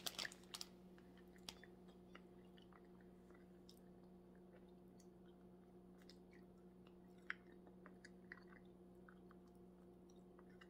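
Faint chewing: a person biting and eating a piece of food, heard as scattered small mouth clicks, one sharper near the middle, over a steady low hum.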